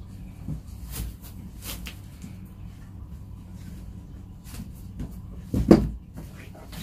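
Cloth rustling and a cardboard box being handled as a T-shirt is pulled tight and knotted over it, with a few short knocks and taps, the loudest near the end.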